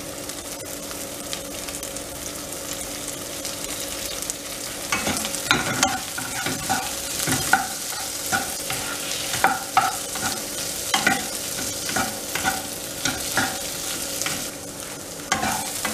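Boiled potato pieces frying in hot oil and ghee in a wok, with a steady sizzle. From about five seconds in, a wooden spatula stirs and scrapes them around the pan in quick, repeated strokes.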